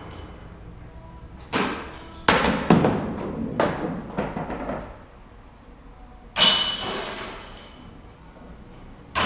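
Disc golf discs crashing into the hanging chains of a metal putting basket, each hit a sudden jingling clank that rings out. There is one hit about a second and a half in, a quick run of several over the next three seconds, another a little past six seconds and one right at the end.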